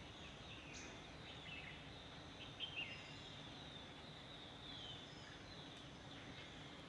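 Quiet forest ambience with scattered high bird chirps and short whistles. Two sharp chirps a little under three seconds in are the loudest sounds.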